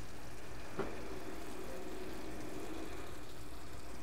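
Faint, steady kitchen background hum with one light click about a second in.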